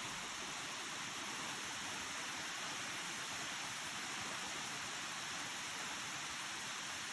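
Waterfall's falling water, a steady unbroken rushing hiss.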